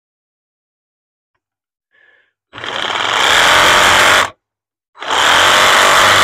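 A handheld power saw cutting the plastic of the old grille shell, run in two bursts: it starts about two and a half seconds in, stops briefly after about two seconds, then starts again and keeps running.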